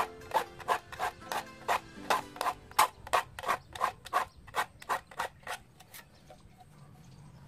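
Small file rasping across the steel teeth of a hand saw in short, even strokes, about three a second, stopping about six seconds in. This is the final sharpening pass that files the teeth to an even height.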